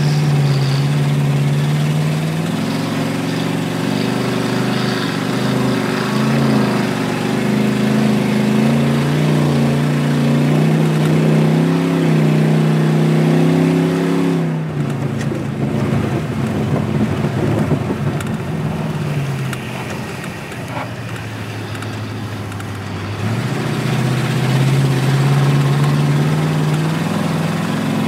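Car engine running at a fairly steady pitch with small rises and dips, heard from inside the cabin while driving on an ice track. About halfway through, the clear engine tone gives way to a rough rumble for several seconds, then the steady engine tone returns.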